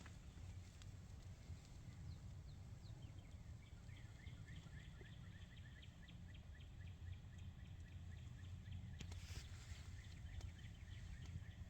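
A small bird trilling: a long run of quick, high chirps, about five a second, starting a few seconds in, over a steady low wind rumble. A brief rustle near the end.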